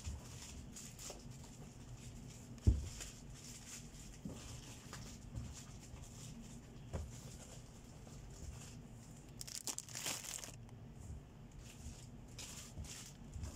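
Plastic snack wrappers and bags crinkling and rustling as packets are handled and packed into a cardboard box, with one sharp thump about three seconds in and a longer stretch of rustling near the ten-second mark.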